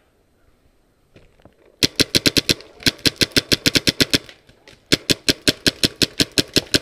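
Paintball marker firing rapid strings of shots, about ten a second, in three bursts that start about two seconds in, with short breaks between them.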